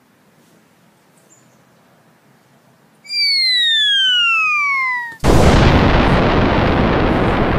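Cartoon bomb-drop sound effect: a loud descending whistle of about two seconds, starting about three seconds in, cut off by a sudden loud explosion that keeps rumbling.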